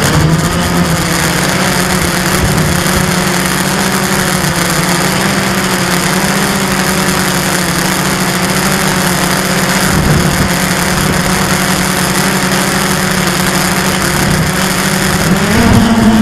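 Blade 350 QX quadcopter's brushless motors and propellers humming steadily, heard close up from the camera on board, with a rushing hiss over it. The pitch dips right at the start, holds, then climbs and grows louder about a second before the end as the throttle is raised.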